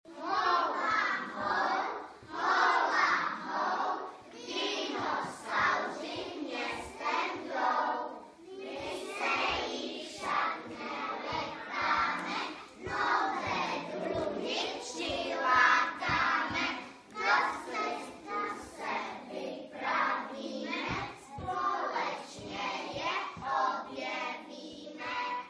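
A group of young children chanting a Czech group cheer together in unison, in a run of short rhythmic phrases with brief breaks between them.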